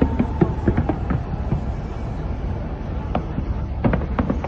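Fireworks exploding in quick clusters of sharp bangs and crackles, one cluster in the first second and a half and another near the end, over a steady low rumble of crowd noise.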